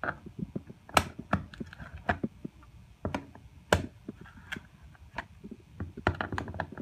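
Tongue-and-groove pliers clicking and clacking on the hex bolts of a plastic shower drain's clamping ring as the bolts are gripped and turned tight, in irregular sharp clicks with a quicker flurry near the end.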